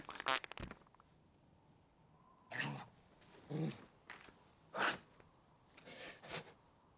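A man straining to defecate: a short wet, spluttering fart just after the start, then four strained grunts and groans about a second apart.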